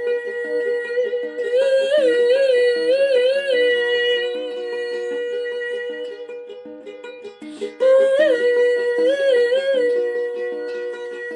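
Solo song accompaniment of plucked strings with a long wordless vocal note held over it, wavering twice.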